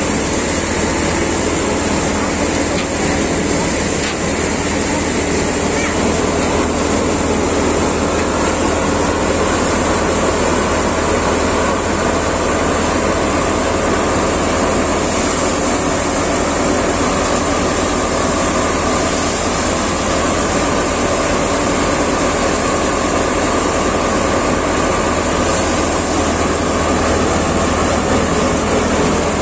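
Tractor-powered Prachi paddy thresher running steadily while threshing paddy: a loud, even mechanical drone of the spinning threshing drum and the tractor's engine.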